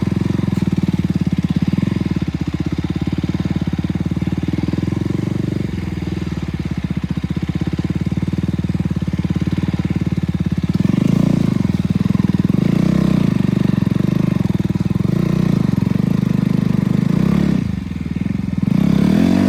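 Single-cylinder engine of a KTM RC 200 motorcycle running under way, steady for the first half. From about eleven seconds in the throttle varies, and the engine note dips briefly near the end.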